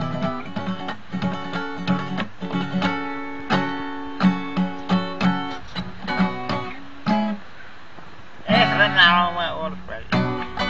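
Acoustic guitar strummed in a steady rhythm, its chords ringing between strokes. Near the end a voice comes in briefly over the guitar.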